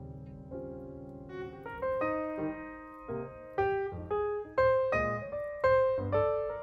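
Background music: a piano playing single notes, soft at first and then a livelier melody from about two seconds in.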